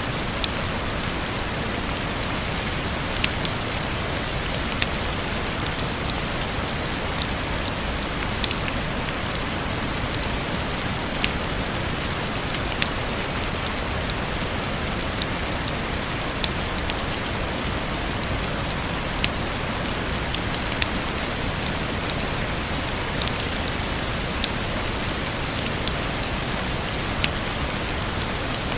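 Steady rain falling, a dense even hiss, with single louder drops landing sharply about once a second.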